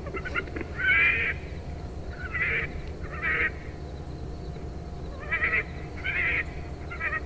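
Electronic predator caller playing the 'Neck Ringer' coyote-calling sound: a string of short, high cries, about seven of them, with a pause of a second or so about halfway through.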